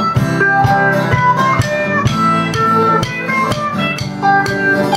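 Band music without vocals: guitar playing over a steady beat.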